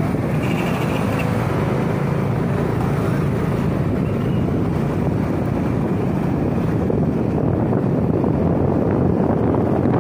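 Wind rushing over the microphone with the steady running of a Suzuki Smash 115 underbone motorcycle's small single-cylinder four-stroke engine, riding along at a constant pace.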